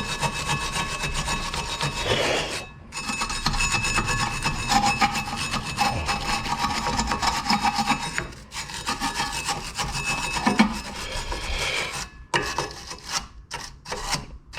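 A stiff brush scrubbing the rear brake caliper mount, bristles rasping against the metal to clear away brake dust and debris. The scrubbing pauses briefly twice and turns into short, quick strokes near the end.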